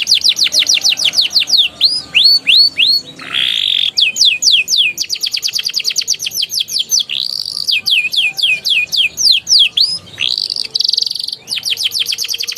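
Domestic canary singing a continuous song of trills made of repeated down-slurred whistles. The trills change speed from phrase to phrase, and a very rapid trill comes near the end.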